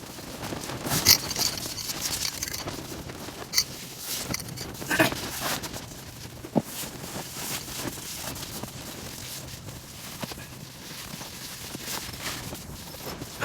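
Handling and rustling noises with scattered sharp clicks and knocks, the loudest about a second in, over a steady rush of wind.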